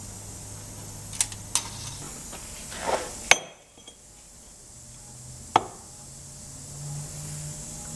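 Light metallic clicks and clinks of steel tubing and tools being handled on a workbench: two clicks about a second in, a short scrape and a sharp clink a little past three seconds in, and one more clank in the second half.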